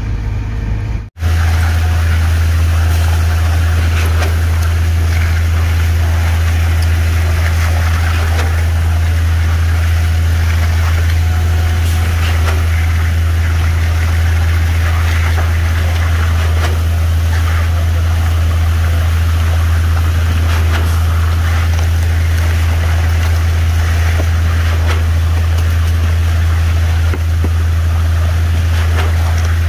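Concrete boom pump truck's diesel engine running at a steady high speed while concrete is pumped through the hose, a loud constant low drone. It cuts in abruptly after a brief dropout about a second in, with faint scraping and ticking above it.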